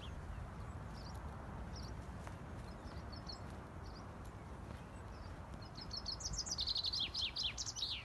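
Small songbird giving a few short high chirps, then a loud rapid song of quick descending notes near the end, over a steady low outdoor rumble.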